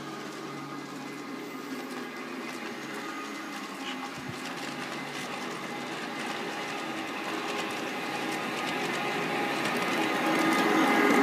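G-scale LGB model of an SBB Cargo electric locomotive with a Dietz sound module, running toward the listener. The module plays a steady electric-locomotive whine of several tones, mixed with the rolling noise of the model's wheels on the rails, and it grows louder over the second half as the train approaches.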